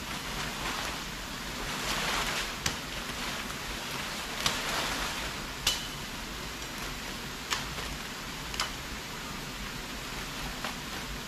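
Machete chopping through brush and saplings: about five sharp single strikes a second or two apart, over a steady hiss and rustle of leaves.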